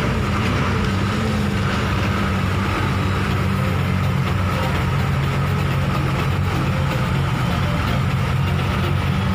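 Heavy diesel engine running steadily with an even low drone, heard from inside a vehicle's cabin.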